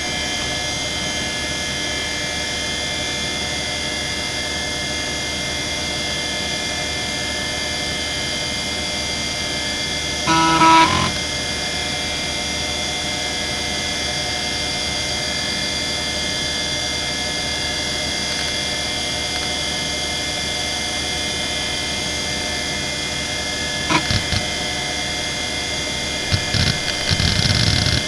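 Quantum ProDrive LPS 270AT 3.5-inch hard drive spinning with a steady whine. It gives a brief loud buzz about ten seconds in, a single click later, and a run of quick seek clicks near the end as Windows 95 begins loading from it.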